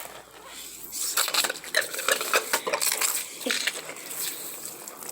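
Irregular metallic clinks and clanks from nearby construction work.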